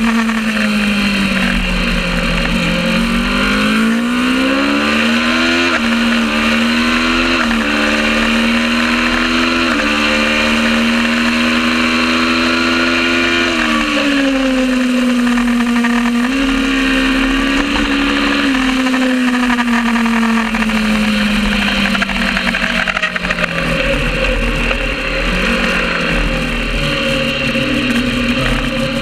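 Kawasaki ER650 parallel-twin racing motorcycle engine under race load. Its revs climb with brief steps down through upshifts, then fall away on braking and downshifts, again and again, over a steady hiss.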